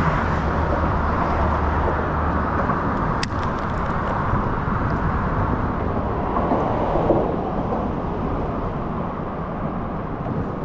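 Steady rumble of road traffic on a causeway bridge, heard from the water below, with one sharp click about three seconds in.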